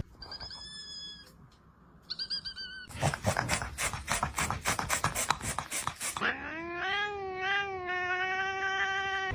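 Domestic cats calling: two short, high meows in the first three seconds, then about three seconds of rapid pulsing at about five a second, then a long, drawn-out yowl that wavers at first and then holds steady.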